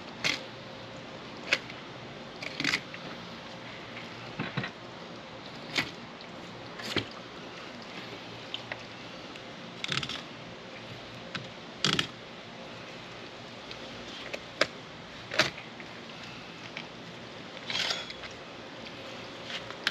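Fillet knife cutting into a blackfin tuna along its backbone: short crunching and scraping sounds at irregular intervals, about a dozen, as the blade works through flesh and over bone.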